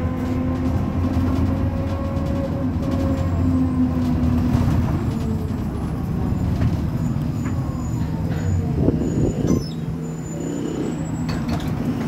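Stationary city bus running at a standstill with a steady low hum. About nine seconds in comes a brief louder clatter, and the deepest part of the hum then drops away.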